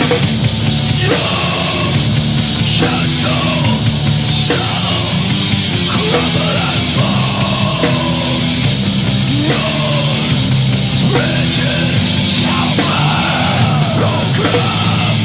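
Heavy metal song: a loud, dense band with distorted guitars and yelled vocals, playing steadily.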